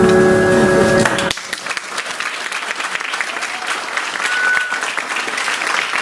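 Recorded music with sustained notes that stops abruptly about a second in, then an audience applauding.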